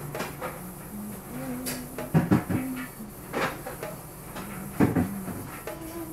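A few sharp knocks: a quick double knock about two seconds in, another about a second later, and one more near five seconds, over faint low tones.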